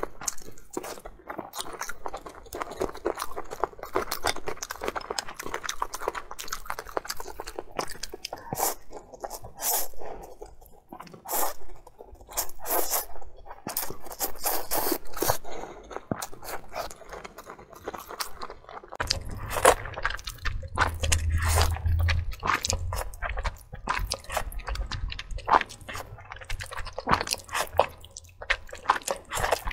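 Close-miked eating: chewing and biting meatballs and slurping noodles, with many quick wet mouth clicks. About 19 s in, a low hum joins under the chewing.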